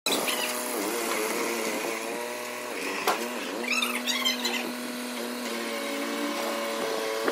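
Sonalika mini tractor's diesel engine running as it manoeuvres, its pitch dipping around a second in and again around three seconds, then holding steady. A sharp click about three seconds in and a few short high squeaks around four seconds.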